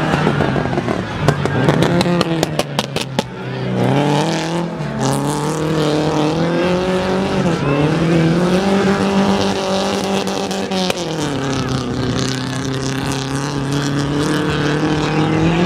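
Rally car engine running hard on a dirt stage, its note climbing about four seconds in, holding high, then dropping about eleven seconds in. A spatter of sharp clicks sounds in the first few seconds.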